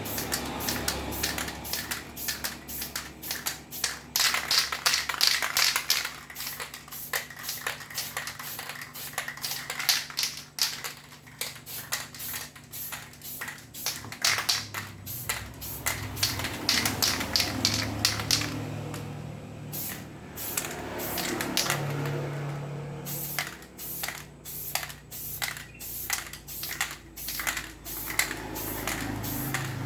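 Aerosol spray paint can in use: the mixing ball rattles in fast clicks as the can is shaken, mixed with hissing bursts of spray. The clicking pauses for a few seconds a little past the middle, then resumes.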